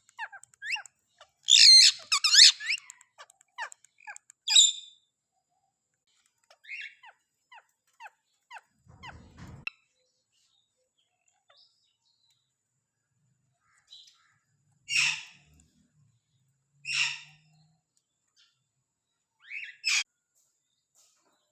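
Green Indian ringneck parakeet calling: a loud run of calls about two seconds in, scattered soft chirps and clicks, then three short loud calls about two seconds apart near the end.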